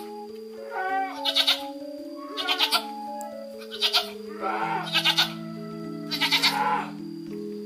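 Livestock bleating about five times, each bleat short and wavering, over background music of long held notes.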